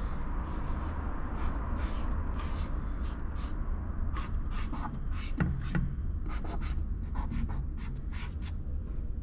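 A hand rubbing and tapping over a dusty toilet lid: a run of short scratchy rubs and taps, a few each second, over a low steady rumble.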